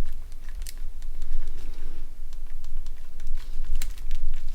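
Small plastic clicks and handling noise as a phone's plastic body shell is pressed onto the handset by hand, over a low rumble.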